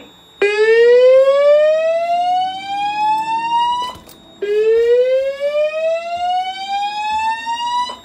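Fire alarm voice evacuation speaker sounding two slow whoop tones, each rising steadily in pitch over about three and a half seconds with a short gap between. This is the evacuation signal that a Notifier DVC plays between spoken evacuation messages.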